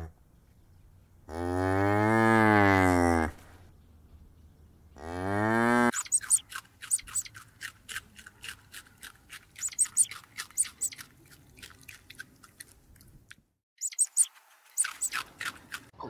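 Cow mooing twice: one long moo that rises and falls, then a second rising moo that cuts off. Then a rabbit chewing leafy greens, a fast irregular run of crisp crunches.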